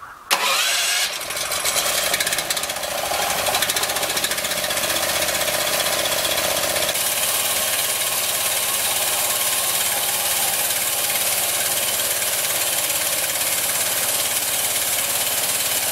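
Small engine driving a homemade bandsaw mill, starting abruptly about a quarter second in, wavering in speed for a few seconds, then running steadily at high speed with a fast, even firing rhythm.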